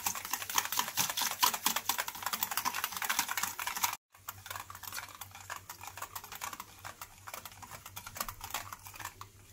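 Yogurt being beaten in a bowl with sugar and spices: fast, irregular clicking and tapping of the utensil against the bowl. The sound cuts out abruptly about four seconds in, and softer clicking carries on after.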